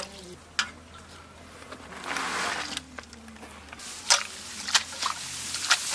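Hands pressing and rubbing chopped leafy greens in an aluminium bowl: soft rustling with a few sharp clicks, the loudest about four seconds in.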